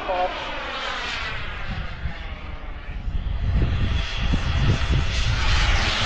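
Kingtech K45G4 model jet turbine of a flying RC jet, its whine dropping in pitch as it passes, then growing louder and brighter as the jet comes round again near the end. Gusts of wind rumble on the microphone in the second half.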